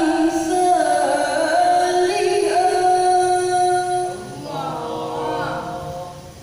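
A woman's voice reciting the Quran in the melodic tilawah style, holding long, wavering notes. The phrase breaks off about four seconds in, and a softer phrase follows and fades near the end.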